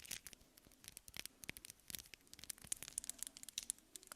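Close-miked ASMR trigger sounds: an irregular run of soft, quick clicks and crackles.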